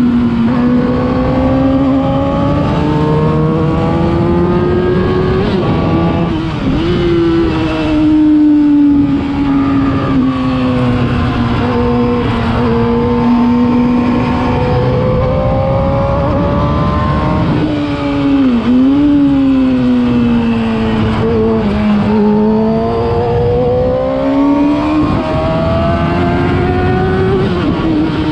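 Yamaha R6's inline-four engine through a LeoVince aftermarket exhaust, heard while the bike is ridden. The engine note climbs, falls away and climbs again several times, with sharp dips around a third and two thirds of the way in.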